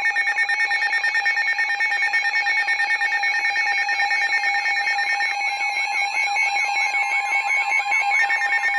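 Weather radio alert alarms sounding together: several high electronic tones beeping in a fast, even pulse. About five seconds in, a further steady tone and a warbling tone join. This marks an incoming warning alert.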